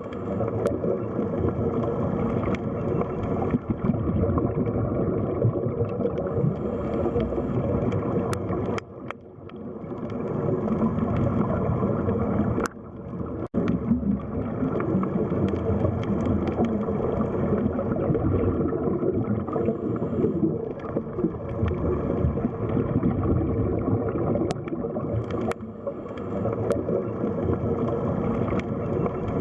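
Underwater sea ambience: a steady, muffled rushing and gurgling of water. It briefly fades about nine seconds in and cuts out for a moment about thirteen seconds in.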